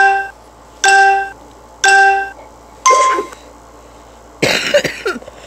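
Three short electronic tones about a second apart, the first two at the same pitch and the third higher. Near the end, a man coughs while smoking.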